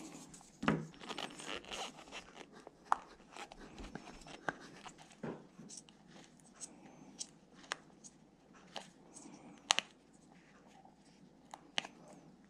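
Hands working on an RC truck's glued tires and wheels with small tools: irregular small clicks and scrapes, with rustling about a second in and one sharper click near the end.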